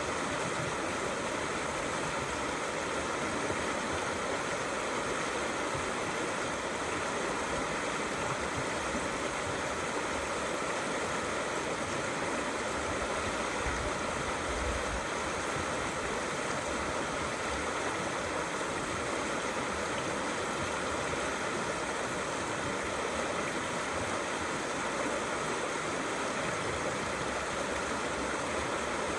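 Small river flowing steadily, a continuous, even rush of running water.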